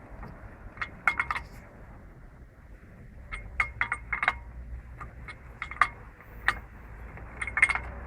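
Metal clicks and clinks in short clusters from a nut and tool as a nut is wound in by hand on the car's front hub.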